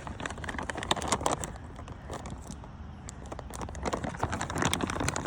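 Raindrops pattering on a nearby surface: many irregular sharp ticks that grow denser and louder toward the end.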